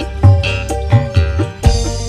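Instrumental dangdut koplo band music played live, with melodic instrument lines over repeated low drum strokes that bend in pitch.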